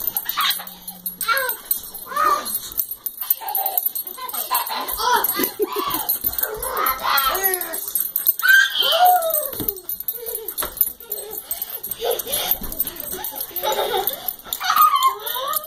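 Dogs whining with high, wavering cries, over a light metallic jingling like collar tags.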